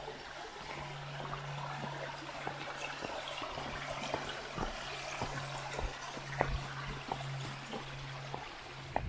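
Small rocky forest stream trickling under a log footbridge, with scattered taps and knocks of boots and trekking poles on the logs. A faint low hum runs underneath.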